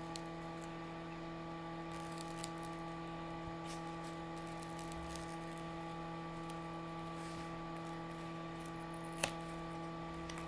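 Steady electrical hum of a hot-air rework gun blowing on a phone's back glass to soften the adhesive, with faint scattered ticks and one sharper click about nine seconds in.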